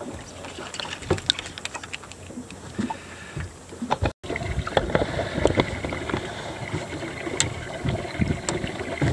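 Water lapping against a small fishing boat, with light wind, and scattered clicks and knocks from handling a rod and a landed fish. The sound drops out for a moment about four seconds in, then comes back louder with more knocking.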